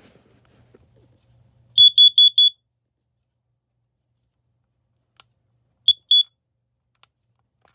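A battery-powered carbon monoxide alarm sounding four quick, loud, high-pitched beeps, then two more beeps about three and a half seconds later. Four beeps in a group is the pattern a CO alarm uses to signal carbon monoxide or a test. A few faint clicks fall between the beeps.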